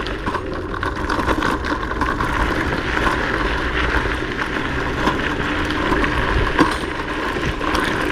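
Kugoo M4 Pro electric scooter being ridden on knobby off-road tyres: a steady running and rolling noise with scattered clicks and knocks. The knocks come from its spring front suspension, which rattles over bumps, a known trait of these non-hydraulic springs rather than a fault.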